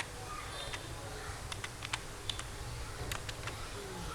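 Irregular light clicks of typing on a keyboard, about a dozen keystrokes at an uneven pace.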